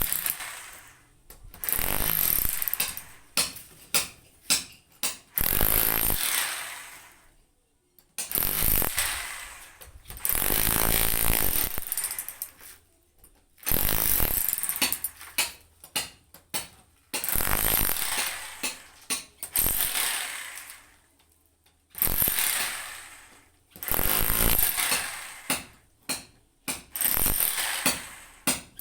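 INGCO rotary hammer chiseling into a floor in repeated bursts of a second or two, each cutting in loud and dying away, with short pauses between.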